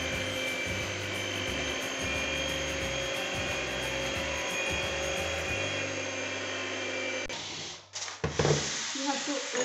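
Electrolux electric hand mixer running steadily, its beaters whirring in a stainless steel bowl of cake batter, then switched off about seven seconds in. A few sharp knocks follow about a second later.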